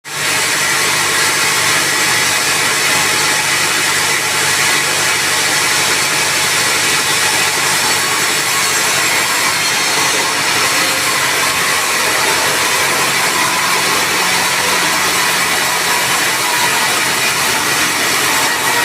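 Sawmill saw running and cutting through timber: a steady, loud sawing noise over the even hum of the machine's motor, with no pauses.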